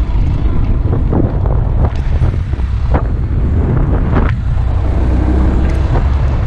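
Wind buffeting the action camera's built-in microphone while riding a 2015 Honda Grom across a field, with the bike's single-cylinder engine running underneath. A few sharp knocks sound in the first few seconds.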